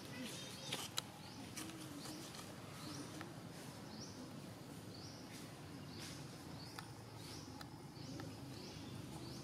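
Outdoor ambience: a short high chirping call repeating about once a second over a low, even background, with one sharp click about a second in.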